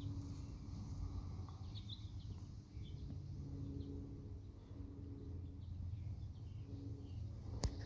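Outdoor ambience: a steady low rumble with scattered faint bird chirps, and one sharp click near the end.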